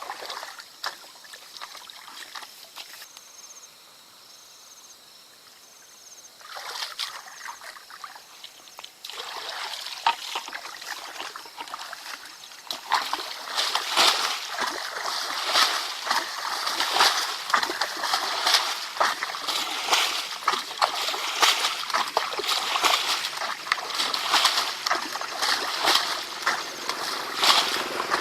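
Water splashing and sloshing in irregular spatters. It is quieter at first and grows busier and louder from about a third of the way in.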